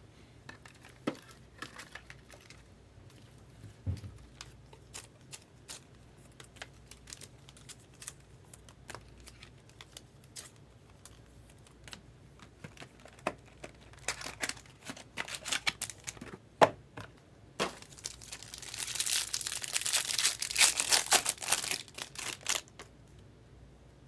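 Trading cards and packaging handled by hand, with scattered clicks and taps, then about eighteen seconds in a few seconds of loud crinkling and tearing as a card pack's wrapper is ripped open.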